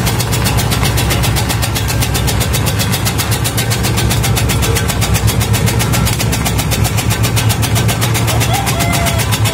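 Homemade tobacco-shredding machine running, its ½-hp electric motor humming steadily while the spinning blade disc chops tobacco leaves in a fast, even rhythm.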